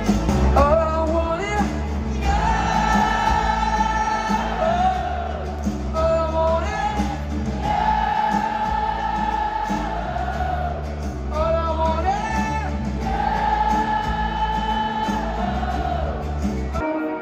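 Live rock band playing a slow ballad in an arena, heard from the audience: long held wordless vocal notes in repeating phrases over electric guitar and a steady bass.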